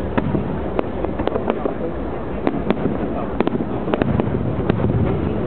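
Aerial fireworks bursting in an irregular series of sharp bangs and pops, about a dozen in a few seconds, over a steady wash of crowd chatter.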